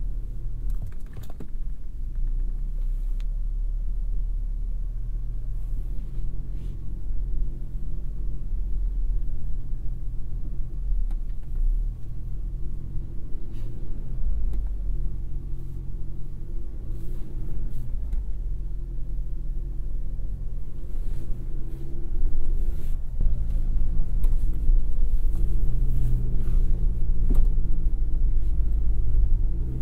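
Cabin sound of a GMC Canyon AT4X AEV's 2.7-litre turbocharged inline-four pulling at low speed off-road, its engine note rising and falling with the throttle over a steady low rumble, with occasional knocks from the truck working over rough ground. The engine gets louder about twenty-two seconds in, as the truck starts up a rocky slope.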